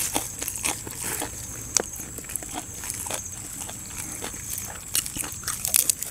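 Close-up chewing of mouthfuls of crisp raw leafy greens: irregular wet crunches several times a second, with a cluster of louder crunches near the end.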